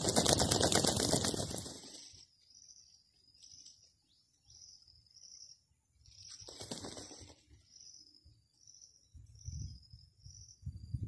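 Male Indian peafowl shivering its fanned train and wings in courtship display: a loud, fast rattle of feathers that stops about two seconds in, and a second brief rattle about six and a half seconds in. Between the rattles come faint, regular high chirps about twice a second.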